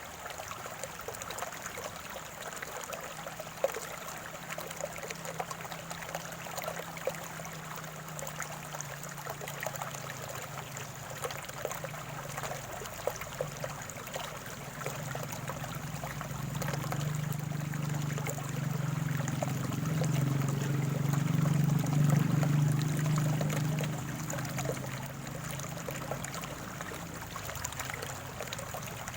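Small stream trickling and gurgling. A low drone swells in about halfway through, becomes the loudest sound, then fades again a few seconds before the end.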